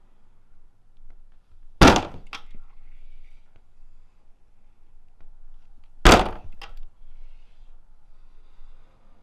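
A door kicked hard twice, about four seconds apart. Each kick is a loud, sharp hit followed about half a second later by a smaller knock.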